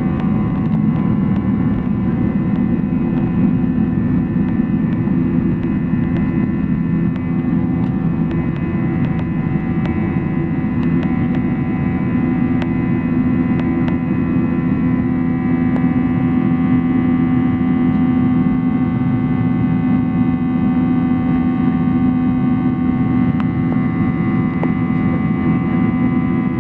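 Boeing 737-900's CFM56-7B turbofan engines at takeoff thrust, a steady deep drone with high steady whining tones over it.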